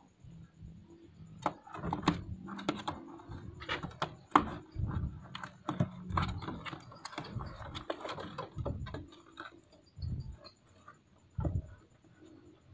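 Pigeons being handled into a cardboard box on a wooden-slatted shelf: irregular scuffs, scrapes and sharp knocks against cardboard and wood, many in quick succession.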